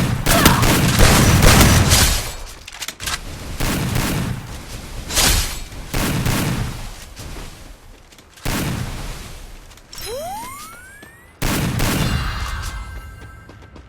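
Video game gunfire sound effects: rapid shooting for about two seconds, then single shots roughly once a second. Near the end a rising whistle-like sweep ends in one sudden loud blast that fades away.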